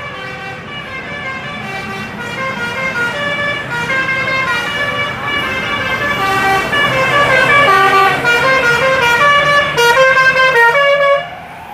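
Bus's telolet basuri multi-trumpet musical horn playing a fast stepped melody of several notes at once. It grows louder and then cuts off abruptly near the end.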